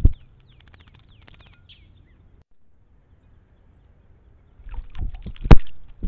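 A small songbird bathing in a shallow birdbath, its wings splashing the water in short bursts. There is a spell of faint dripping and crackle, then a gap, then more splashing with one sharp snap near the end.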